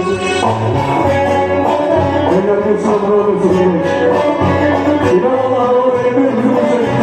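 Live band music with a plucked string instrument and a singing voice over a steady beat.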